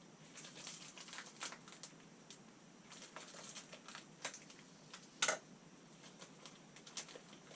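Packaging being opened by hand to unwrap a replacement lathe part: light crinkling and rustling with scattered small clicks, and one sharper snap about five seconds in.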